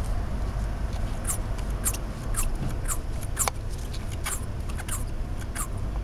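Mercedes-Benz 380SL V8 idling with a steady low rumble during a vacuum-gauge test. About a dozen short, high squeaks come at irregular intervals over it.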